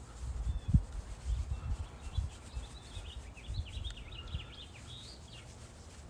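A paintbrush dabbing and rubbing paint onto a rifle, heard as low rubbing with scattered knocks, one sharper knock just under a second in. A bird chirps in a quick run of notes through the middle.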